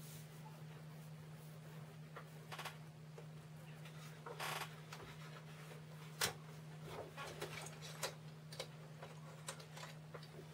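Light clicks, taps and a short scrape from a printed card sheet and a clear plastic ruler being handled on a work table, the sharpest click about six seconds in, over a steady low hum.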